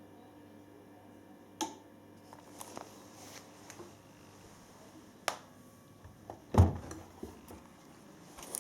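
A few sharp clicks and knocks, with one louder dull thump about two-thirds of the way through, over a faint steady hum.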